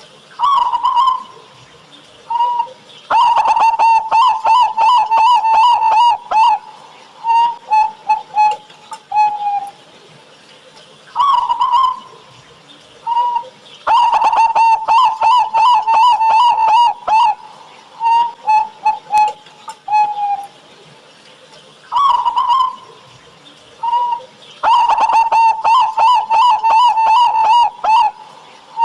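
Zebra dove (local perkutut) singing its full, deep-voiced song three times, about eleven seconds apart. Each song is an opening coo, a short pause, a fast rolling run of coos lasting about three seconds, then a few separate coos trailing off.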